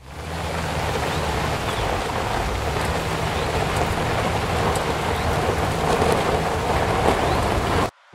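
Steady rushing rain-like noise with low held tones underneath, most likely a rain-and-thunder ambience track laid over the intro. It fades in at the start and cuts off abruptly just before the end.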